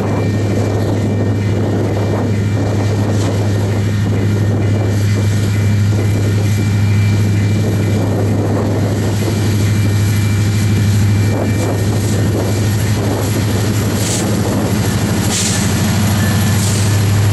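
Union Pacific diesel freight locomotives approaching and passing close by, their engines making a steady low drone. Sharper wheel and rail noise joins near the end as the lead units go past.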